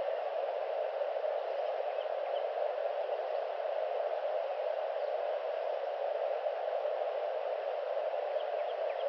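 Steady, even hiss from a live nest webcam's audio feed, with a few faint high chirps about two seconds in and near the end.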